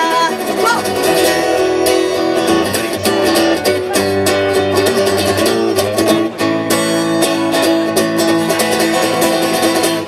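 Guitar playing an instrumental break between verses of a song, with steady rhythmic chords and no singing.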